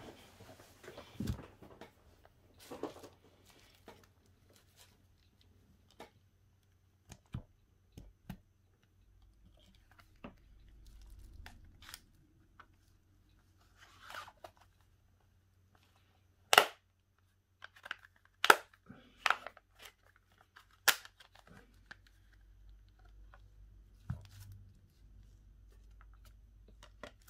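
Hand-work on a Xiaomi Redmi 8A smartphone being taken apart: scattered sharp plastic clicks and snaps, several close together from the middle on, with short scraping and rustling noises between them.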